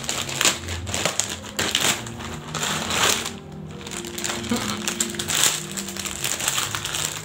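Plastic packaging crinkling and rustling in irregular bursts as a new bonnet is handled and unwrapped, over steady background music.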